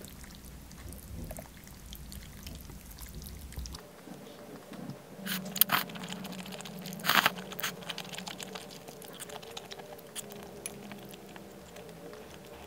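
Kalguksu noodles slurped from a bowl, with two short, loud slurps about five and a half and seven seconds in.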